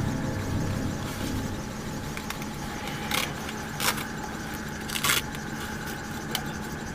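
Steady in-flight cabin noise inside the Solar Impulse 2 solar-powered aircraft's cockpit: a hum with a faint steady whine. Three short hisses come about three, four and five seconds in.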